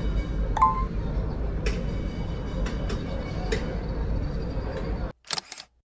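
Steady low rumble of city street noise, with a few sharp clicks and a short beep about half a second in. It cuts out abruptly about five seconds in, with two brief crackles.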